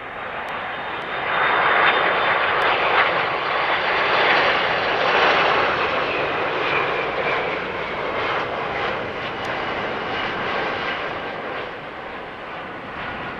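Airbus A330-300 airliner on landing approach, its two Pratt & Whitney PW4000 turbofans making a jet roar that swells about two seconds in, is loudest for a few seconds, then slowly fades as it passes. A faint high whine drops slightly in pitch through the pass.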